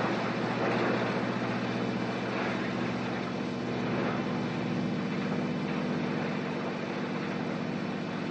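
Garbage truck running, its engine and rear compactor making a steady, low mechanical drone.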